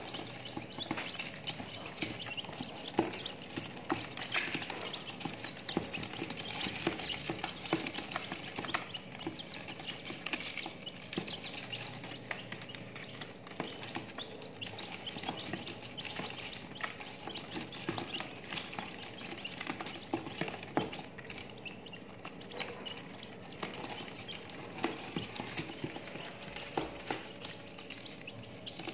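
Serama chicks pecking at feed and mealworms on newspaper, with many quick irregular taps and paper rustle, and high peeping throughout.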